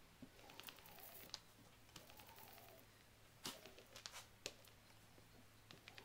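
Near silence: faint workshop room tone with a steady low hum and a few light clicks.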